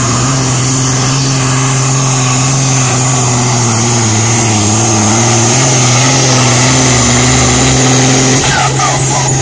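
Super Sport class pulling tractor's engine running at full load as it drags the weight-transfer sled down the track: a loud, steady drone.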